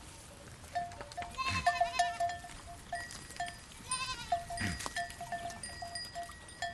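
Goats bleating twice, each a quavering cry, over small bells ringing irregularly.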